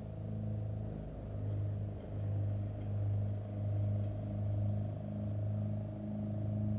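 Gravely Pro-Chip 944 wood chipper running steadily: a low, pitched engine hum whose loudness swells and dips slightly, a little more than once a second.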